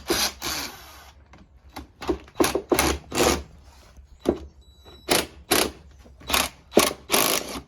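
Cordless drill backing out bolts on a KX85 two-stroke engine case, run in a dozen or so short, irregular bursts.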